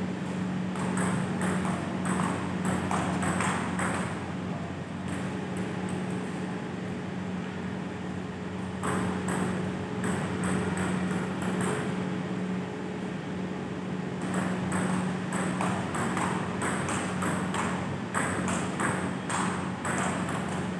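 Table tennis rallies: the ball clicking off paddles and bouncing on the STAG table in quick, irregular ticks, in three bursts with pauses between. A steady low hum runs underneath.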